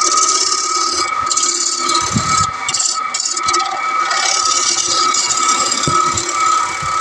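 Wood lathe running with a steady whine while a turning tool cuts a spinning wooden plate blank, a hissing scrape of the cut. The cut breaks off briefly several times between about one and three and a half seconds in, then resumes.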